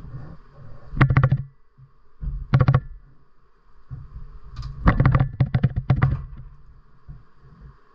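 Hard objects handled while the hive is being worked, giving three runs of quick clattering knocks: about a second in, at two and a half seconds, and a longer run from about five to six seconds in. A faint steady hum runs underneath.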